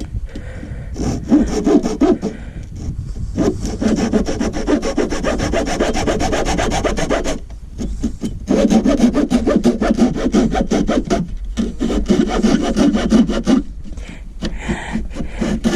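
Hand saw cutting through a board with fast back-and-forth strokes, in four bouts with short pauses between them.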